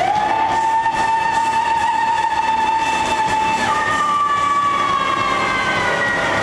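Live band playing a loud, dense drone, with one long high note that swoops up, is held for about four seconds, then leaps higher and slowly sinks.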